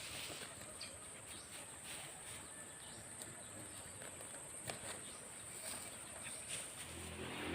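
Insects chirring steadily in a high, even drone, with a few faint scattered clicks.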